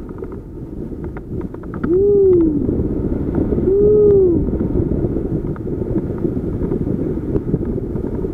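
Wind buffeting the camera microphone in flight under a paraglider, a steady rumble. Twice, about two and four seconds in, a person calls out a short rising-then-falling "hooo".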